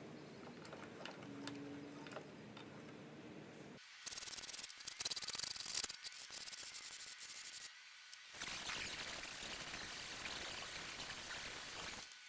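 Aerosol spray can hissing in bursts, starting abruptly about four seconds in, pausing briefly, then spraying steadily until it cuts off near the end.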